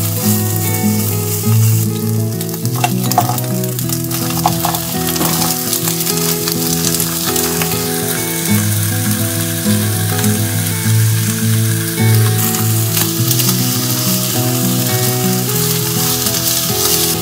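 Salmon and frozen vegetables sizzling in oil in a nonstick frying pan, stirred with chopsticks as the vegetables' moisture cooks off. The sizzle grows louder in the last few seconds, with a light melody of background music underneath.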